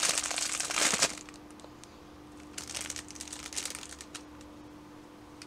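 Packaging being handled, crinkling: a loud spell in the first second, then a quieter spell about two and a half to four seconds in.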